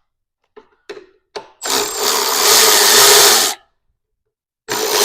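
A power tool running in two bursts of about two seconds each, after a few light clicks and knocks of tools being handled.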